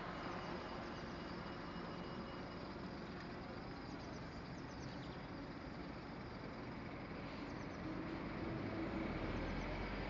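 Steady outdoor background of distant traffic rumble, growing a little louder near the end, with a few faint high chirps.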